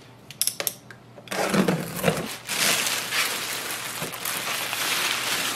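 A few short sharp clicks, then clear plastic packaging bag crinkling and rustling steadily as it is pulled off a printer.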